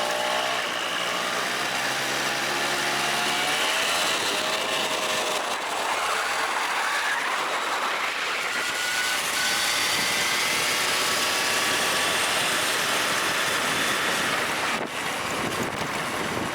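Car driving: steady engine and road noise with faint whines that shift in pitch, heard on a run with a freshly replaced bearing in its final drive, which had been humming from about 30 km/h upward.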